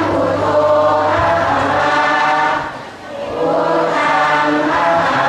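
Many voices chanting a Buddhist chant in unison, in long held phrases with a short break about three seconds in.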